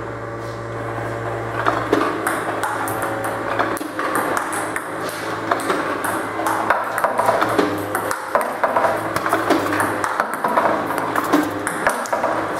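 Table tennis rally against an iPong V300 ball-pitching robot: many quick, sharp plastic clicks of balls bouncing on the table and being hit with a paddle, at an uneven rhythm, over a steady low hum.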